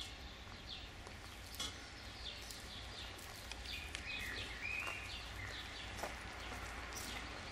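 Small birds chirping and calling again and again, short notes with a few longer rising and falling calls, over a steady low rumble. A few sharp clicks stand out, one about a second and a half in and another about six seconds in.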